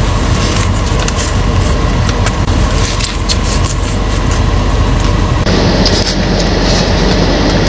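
Steady rushing and humming of a car running with the occupant inside the cabin, with scattered small clicks over it and a louder rush near the end.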